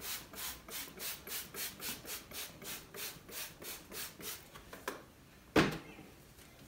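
A trigger spray bottle being pumped at a mirror again and again: short hissing spurts, about three or four a second, that stop after about four and a half seconds. A single sharp knock follows about a second later.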